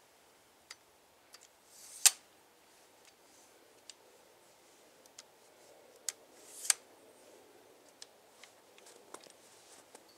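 Tripod being set up by hand: scattered small clicks, and twice a short sliding hiss ending in a sharp snap, about two seconds in and again near seven seconds, as legs or the head are moved and locked.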